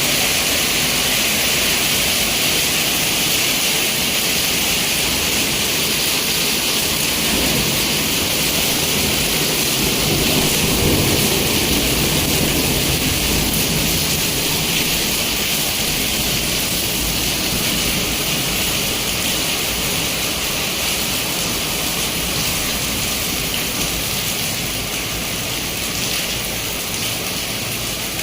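Heavy rain from a hailstorm pouring down in a steady, dense hiss, easing slightly toward the end.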